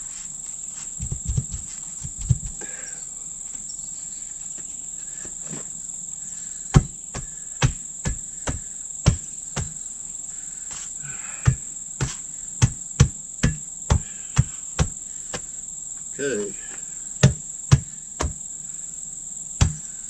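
A long irregular series of sharp knocks, about two a second from about seven seconds in, with a few duller thumps near the start: hand-tool blows on the wheel and tire while a split-rim truck tire is remounted by hand. A steady high drone of insects runs underneath.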